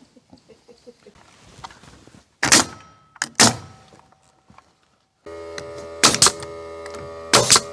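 Trim boards being fastened: sharp knocks of nails driven into the wood, two at first and then paired knocks later, with a steady motor hum starting suddenly about two-thirds of the way through.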